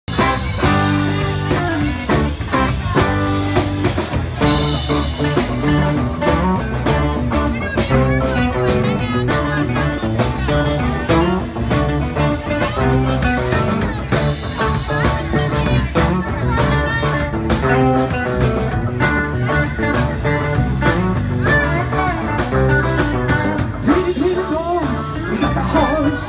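Live band playing electric guitars and a drum kit, a full rock band sound with a steady beat.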